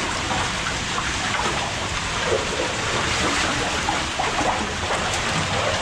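Steady rush of water inside a concrete drainage culvert, with the splashing of people wading through it.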